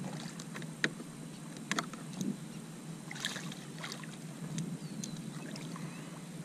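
Water splashing as a hooked redfish is grabbed by hand beside the boat and lifted out, with a few short sharp splashes and knocks over a steady low wash of water.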